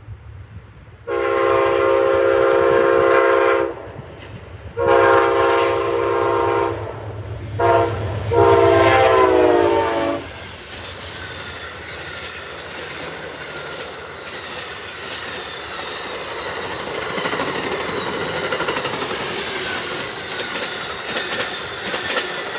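Amtrak passenger locomotive's chime horn sounding the grade-crossing signal: two long blasts, a short one and a final long one that drops in pitch as the locomotive passes. The train then rolls by with the steady rumble and clickety-clack of its wheels over the rail joints.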